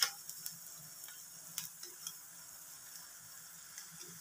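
Jalebi frying in hot oil in a wide pan: a steady soft sizzle, with a few sharp clicks in the first two seconds.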